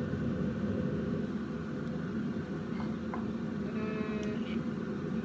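Steady mechanical hum of a running machine, with a few faint clicks about three seconds in.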